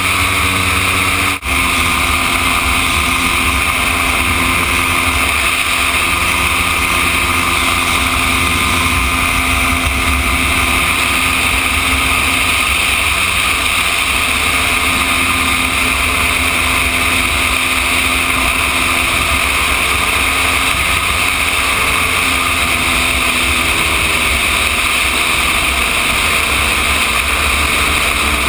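Gyroplane engine and propeller running steadily, heard from onboard with rushing wind over the microphone. The sound cuts out briefly about a second and a half in.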